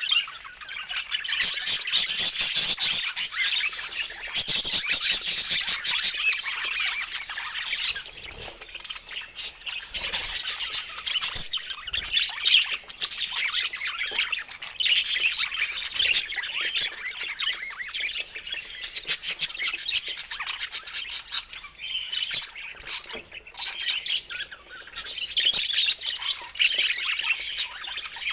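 Budgies chattering and warbling without a break: fast, scratchy, high-pitched chirps and squawks.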